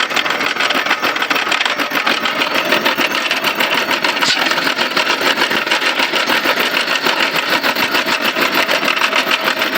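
Lathe running with a steady, fast mechanical rattle.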